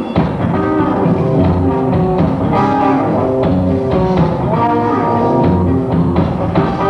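A live rock band playing, with guitar and drum kit.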